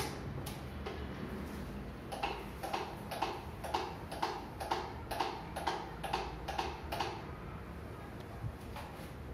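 Rhythmic strokes of paint being worked onto a wall, about two a second, starting about two seconds in and stopping about two seconds before the end, over a steady low hum.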